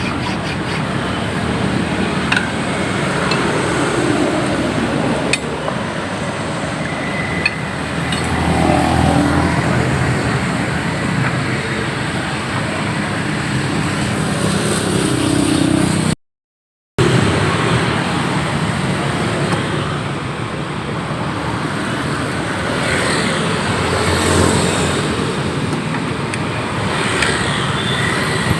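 Steady road traffic noise from passing vehicles, with a few faint metallic clinks. The sound cuts out completely for under a second about halfway through.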